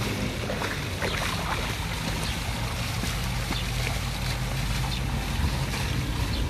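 Fountain jets splashing steadily into a shallow basin, with a dog sloshing as it wades through the water; a low steady hum runs underneath.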